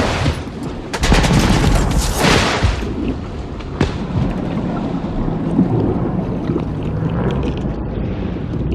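War-film battle sound of gunfire and explosions. A loud noisy blast runs from about a second in for over a second, a single sharp crack comes near four seconds, and lower rumbling with scattered crackles follows.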